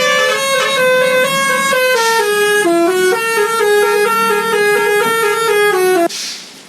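Bus telolet horn, a set of musical air horns, playing a tune of stepping notes, then cutting off suddenly about six seconds in.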